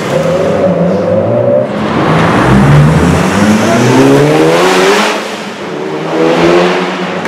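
A performance car accelerating hard inside a concrete tunnel. Its engine note climbs steeply in pitch, drops about five seconds in at a gear change, and climbs again.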